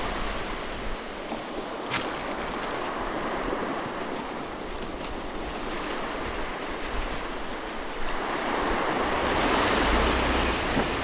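Ocean surf washing onto the beach, a steady rushing that swells louder about eight seconds in. A brief click about two seconds in.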